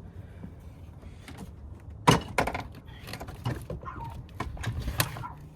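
Irregular clunks and knocks of a car battery being set down and shifted into its tray, with a sharp one about two seconds in and another near the end.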